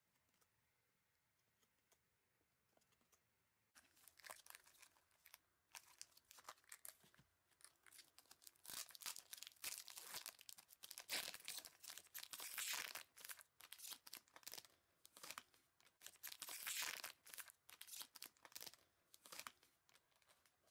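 Wrapper of an Epoch J.League trading-card pack being torn open and crinkled by hand: a long run of crackling rips and rustles that starts about four seconds in.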